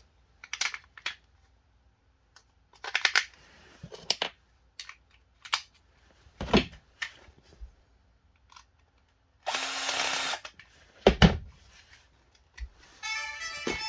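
Clicks and knocks of a plastic toy gun's battery compartment being opened and batteries fitted, with a dense one-second whirr about ten seconds in.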